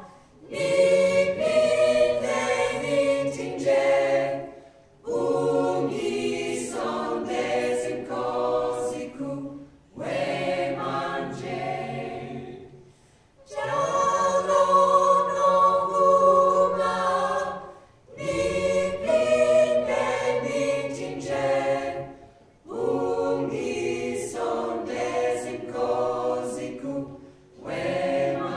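Mixed-voice a cappella choir singing together, the phrases of about four to five seconds each broken by short breathing pauses.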